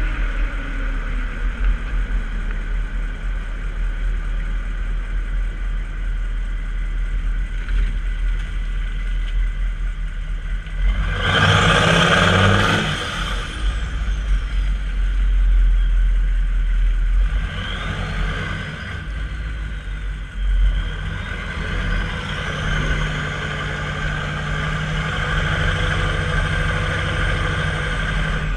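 Chevy 6.5-litre V8 turbo diesel running through a 4-inch open turbo-back exhaust while driving, with a louder surge under throttle about eleven seconds in. The turbo whistle climbs and falls several times as it spools up and down.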